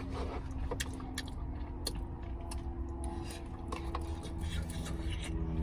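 Close-up chewing with wet mouth clicks and smacks from someone eating, over a steady low hum inside a car cabin.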